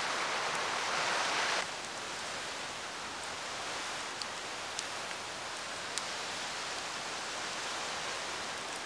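Campfire crackling: a steady hiss with scattered sharp pops. A louder rushing hiss cuts off suddenly about a second and a half in.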